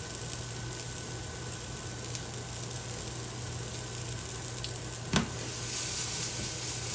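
Breaded fish pieces deep-frying in a saucepan of hot oil with a steady sizzle as more pieces are lowered in. A single sharp knock comes about five seconds in.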